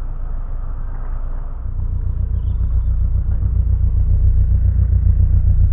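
Narrowboat engine running under way, a steady low rumble with a fine rapid pulse, stepping up in level about two seconds in.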